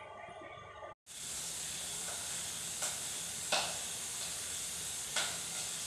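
About a second in, a steady cooking sizzle starts, with a few sharp pops and crackles scattered through it.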